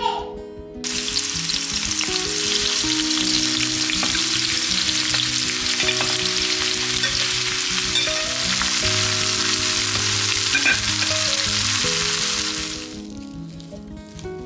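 Food sizzling as it fries in a hot pan, starting suddenly about a second in and dying away about a second and a half before the end, over soft background music.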